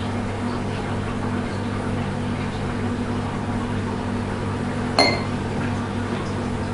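A steady, low electrical hum, with one sharp glass clink about five seconds in: a liquor bottle knocking against a glass mixing beaker during a pour.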